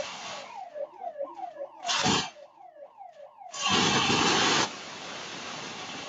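A burglar alarm siren going off in fast repeated downward sweeps, about three a second. A short burst of loud rushing noise comes about two seconds in, and a longer one of about a second near the four-second mark.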